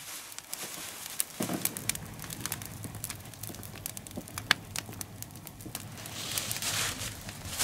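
Log fire crackling, with sharp irregular pops and snaps; a short rush of hissing noise comes about six seconds in.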